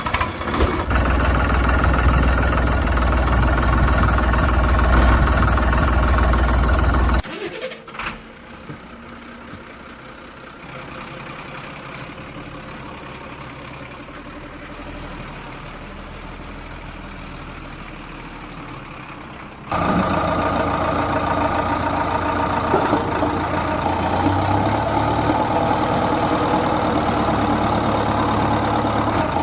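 A vehicle engine running steadily. It cuts suddenly to a much quieter stretch about seven seconds in, and comes back loud near twenty seconds.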